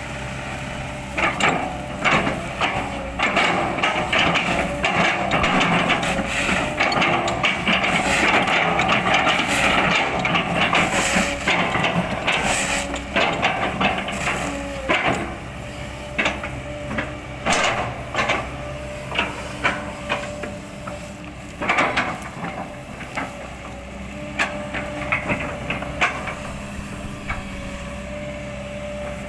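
Kobelco excavator's diesel engine running steadily while its bucket chops up an oil palm trunk: dense cracking and crunching of palm wood through the first half, then scattered knocks and cracks.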